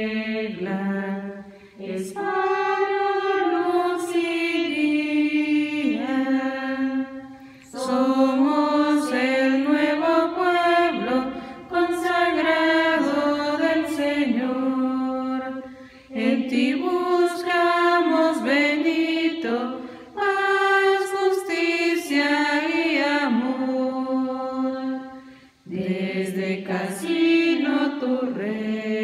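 A choir of Benedictine nuns singing a Spanish hymn in unison, a cappella, in long phrases broken by short breaths.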